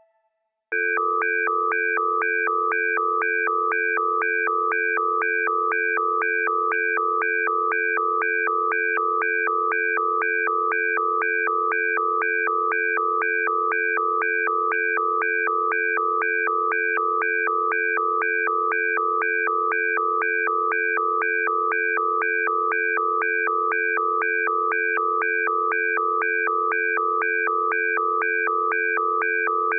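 Synthetic electronic alarm tone that starts just under a second in and sounds continuously, a steady low tone under higher tones that switch back and forth several times a second in an even warble.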